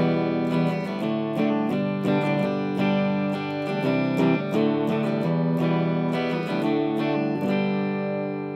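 Jackson JS32T Rhoads electric guitar with its stock pickups, played clean on the bridge pickup through a Marshall Origin 50 amp head: picked notes and arpeggiated chords, then a last chord left to ring out from about seven and a half seconds in.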